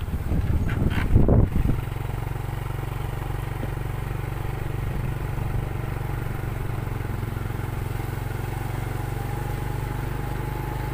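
A vehicle's engine runs steadily as the vehicle travels along a concrete road. About a second in there is a brief loud rumble of wind and road noise on the microphone.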